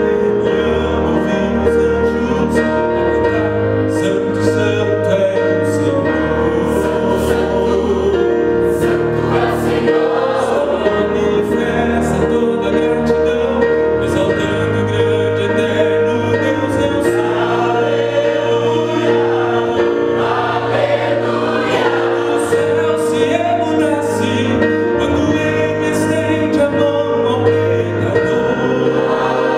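Mixed choir of men and women singing a gospel hymn together.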